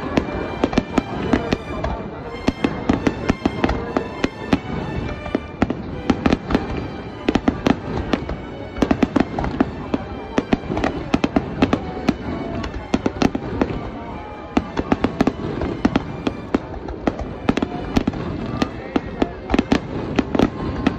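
Aerial fireworks display: many shells bursting overhead in rapid, overlapping sharp bangs, several a second, with no let-up.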